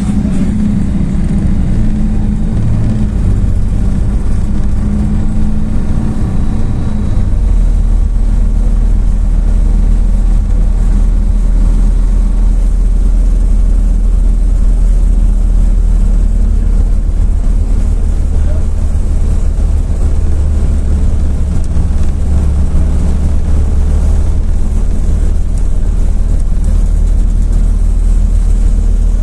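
MAZ-206 city bus heard from inside while riding: a loud, steady deep engine and road rumble, with the engine's pitch standing out more clearly for the first several seconds before settling into an even drone.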